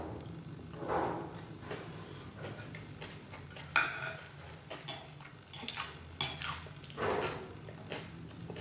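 Chopsticks and a spoon clicking and scraping against a ceramic plate of rice, a few separate sharp clicks, between softer chewing sounds.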